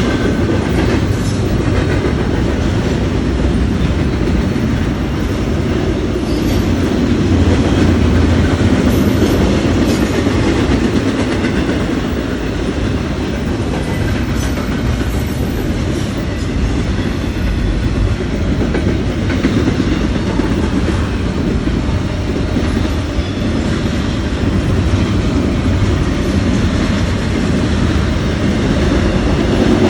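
CPKC freight train's cars rolling past at steady speed: a continuous rumble with the clickety-clack of wheels over the rail joints.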